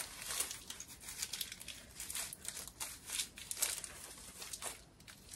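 Crinkling and rustling as a doll's dress and the plastic wrap under it are handled, with short light tearing sounds as the Velcro fastening on the back of the dress is pulled open.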